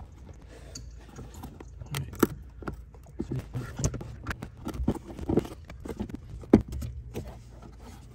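Plastic accelerator-pedal cover being worked loose and slid off its mount by hand: a series of irregular scrapes and clicks, the sharpest about two seconds in and again after six seconds.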